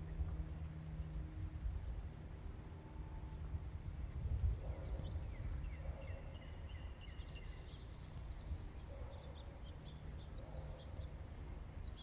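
Outdoor ambience with a steady low wind rumble on the microphone and a small songbird singing twice, each song a high note followed by a short rapid run of repeated notes, about a second in and again a little past eight seconds.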